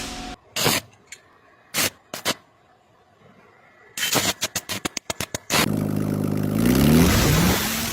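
A few sharp clicks, then a quick irregular run of clicks, then an engine starts and revs up, its pitch rising before it settles to a steady run.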